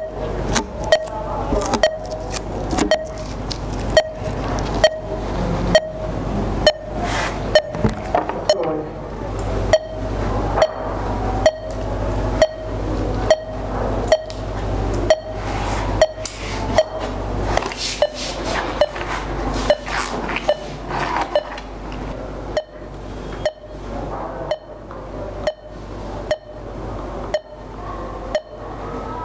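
Steady electronic beeping: a short beep with a click about once a second, over a low constant hum.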